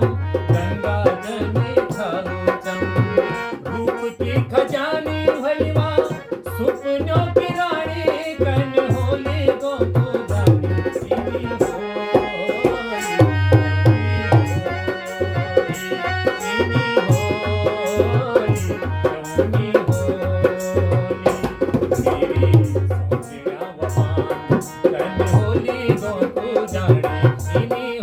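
Harmonium playing a melody over a steady, driving dholak rhythm: an instrumental interlude in a Garhwali Holi folk song.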